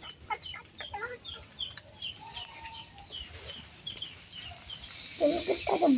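Birds chirping: a run of short, high, falling peeps at about three a second, with a louder call near the end.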